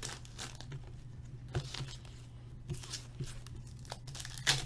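Foil hockey card pack wrappers being crinkled and torn open by hand: scattered short crackles, with a louder tear near the end.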